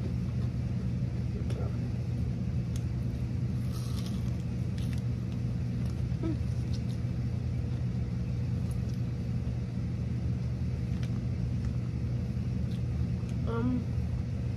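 A steady low rumbling hum with a faint steady tone above it. A few faint clicks are scattered through it, and there is a brief murmur of a voice near the end.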